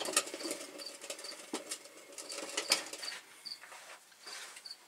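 Scattered light clicks and scuffs of parts and equipment being moved about under the truck as the clutch pressure plate is brought up.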